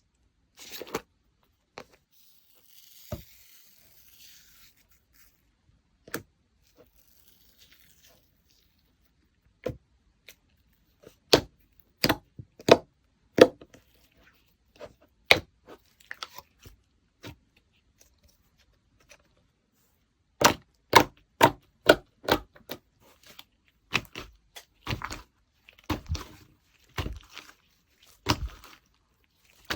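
Slime being squished and stretched by hand, making sharp clicking pops from trapped air. The pops come scattered at first, then in quick runs of several at a time, with silent gaps between.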